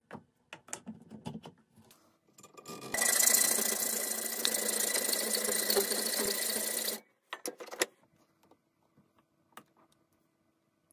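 A small power grinder's spinning disc grinding a steel pliers jaw held in a vise. It runs steadily with a high whine for about four seconds, starting and stopping abruptly. Light clicks and taps of metal being handled come before and after.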